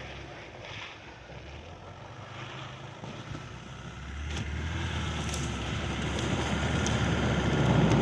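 Car engine and tyres of a car driven through snow with a run-up, the engine held under load and the noise growing louder about halfway through.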